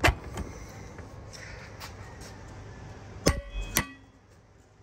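Metal tools being handled on a workbench: a knock at the start, then two ringing metallic clangs about half a second apart, around three seconds in.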